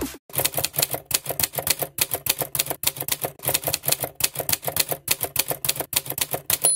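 Typewriter sound effect: a quick, uneven run of key clacks, about five a second, ending in a short bell ding.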